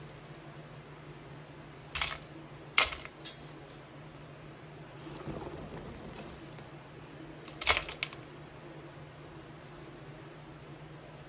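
Hard chunks of solid butter dropped into an empty stainless steel pot, clinking against the metal: sharp clinks about two and three seconds in and a louder cluster near eight seconds, with fainter rustling between. A steady low hum runs underneath.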